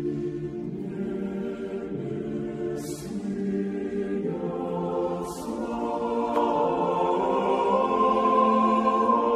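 Background choir music: voices singing slow, sustained chords that change every second or two, swelling louder in the second half. Two brief hisses come about three and five seconds in.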